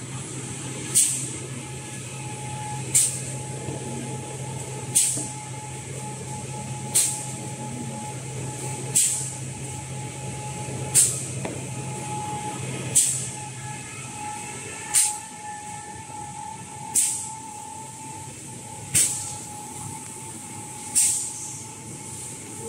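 Toilet-paper production line machinery running with a steady hum and a faint whine, broken about every two seconds by a sharp hiss of compressed air exhausting from the line's pneumatic cylinders, one hiss per machine cycle. A lower part of the hum drops away about two-thirds of the way through.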